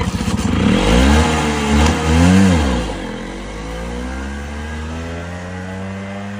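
Scooter engine revved hard, its pitch rising and falling twice, as the scooter pulls away along a dirt track. About three seconds in, the engine settles into a steadier, quieter drone as it moves off.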